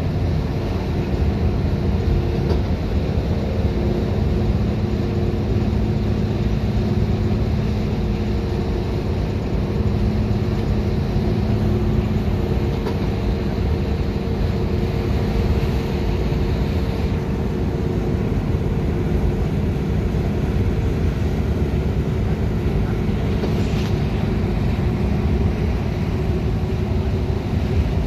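Steady drone of a 2011 Gillig Advantage transit bus cruising at speed, heard from inside the cabin: engine and drivetrain hum over a constant rumble of tyre and road noise. A brief sharp sound comes near the end.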